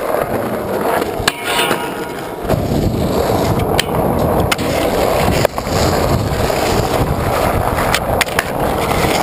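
Skateboard wheels rolling over rough asphalt, with several sharp clacks of the board against a metal rail and the ground.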